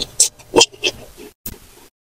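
Close-miked eating mouth sounds: a few short wet smacks and slurps in the first second, then a brief pause.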